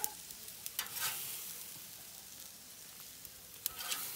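Steaks sizzling on a hot charcoal barbecue griddle, a steady high hiss, with a few sharp clicks around one second in and again near the end.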